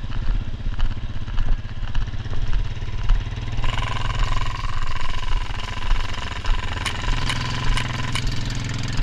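Vehicle engine running steadily, with a steady higher tone joining about four seconds in and a few sharp clicks near the end.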